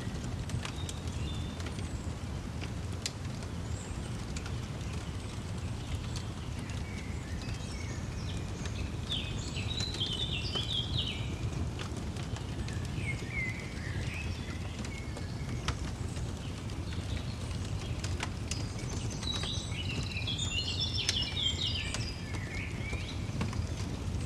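Birdsong over a crackling fire: two spells of quick, warbling songbird phrases, one about a third of the way in and one near the end, over a steady low rumble and scattered sharp pops from the fire.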